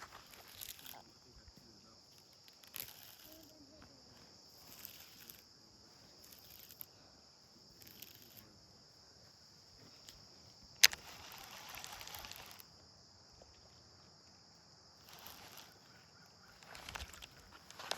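A steady high insect drone, with a short hiss every second or two. About eleven seconds in comes a single sharp click, the loudest sound, followed by about two seconds of rustling noise.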